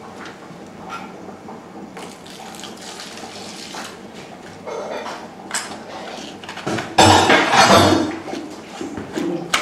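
Wooden spoon stirring wet clay and water in a glazed terracotta bowl: irregular wet scraping and sloshing against the bowl, loudest for about a second around seven seconds in.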